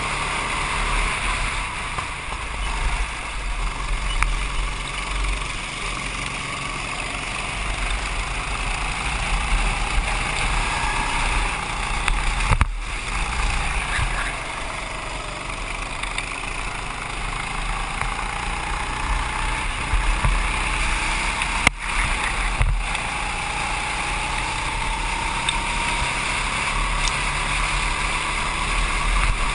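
Go-kart engine running at speed, heard from on board the kart, its pitch slowly falling and rising again as the throttle is lifted and reapplied through the corners.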